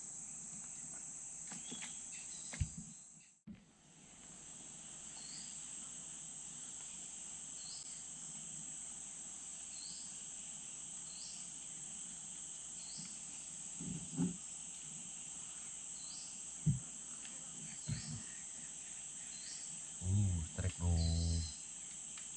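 Steady high-pitched insect drone from the riverside forest, with a short chirp repeating about every second and a half. The sound drops out for a moment about three seconds in, a few soft knocks come and go, and a brief low voice-like sound stands out near the end.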